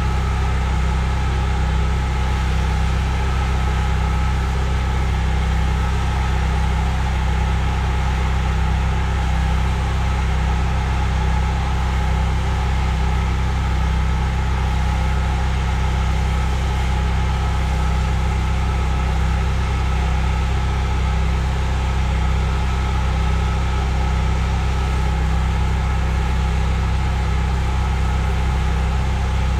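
Pressure washer engine running steadily.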